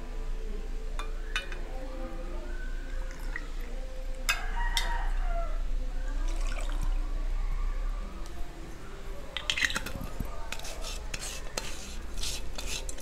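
Vodka poured from the bottle into a metal jigger and then tipped over ice cubes in a tall glass, with light clinks of metal and glass. Near the end comes a quick run of small clicks and taps as the jigger is set down and the bottle cap is handled.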